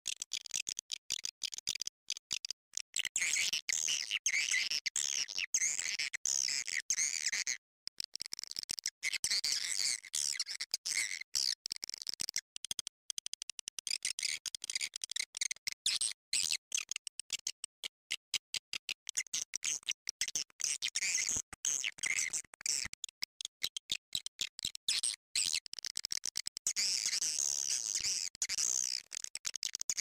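Swiftlet lure call: a looped track of swiftlets' high, rapid chirping and twittering, cut by many short breaks, played to draw swiftlets into a nesting house.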